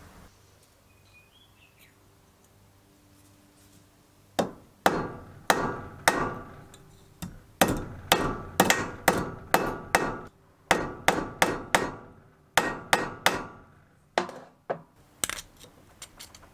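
Hammer blows on metal: a quick, irregular run of about two dozen sharp strikes, each with a short ring, starting about four seconds in.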